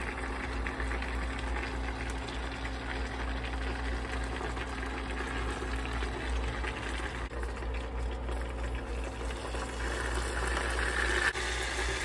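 Hot meat juices bubbling and crackling in the pot beneath a smoked brisket on a perforated rack, a little louder near the end.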